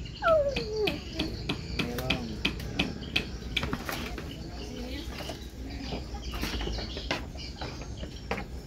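Fish being sorted by hand into plastic baskets: a string of slaps, knocks and rattles of fish and plastic crates on wooden boards. A short falling call sounds near the start.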